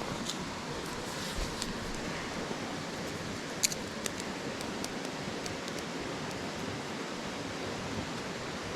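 Steady rushing of a river, with a few light clicks and one sharper click about three and a half seconds in.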